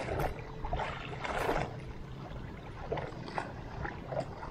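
Water lapping and splashing in irregular washes, the largest about a second and a half in, over a steady low rumble.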